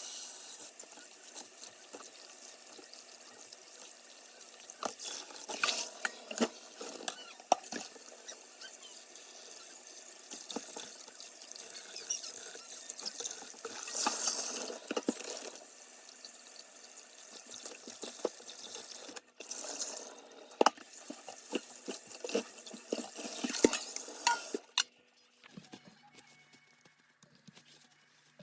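Kitchen tap running into a sink, with knocks and clinks of things being handled and washed under the water; the water stops suddenly near the end, leaving a faint low hum.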